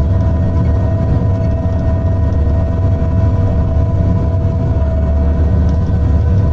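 Tigercat logging machine's diesel engine running steadily, heard from inside the cab: a deep, even rumble with a constant whine over it.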